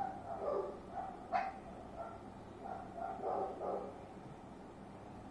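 A dog barking several times in the first four seconds, then stopping.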